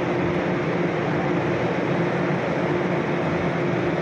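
Steady drone of a ship's machinery: an even rushing noise with a constant hum that does not change.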